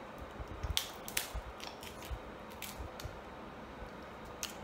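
King crab and crayfish shells cracking and snapping as they are pulled apart by hand for eating: a run of about seven short, sharp cracks spread over the seconds, the loudest near the start and one near the end.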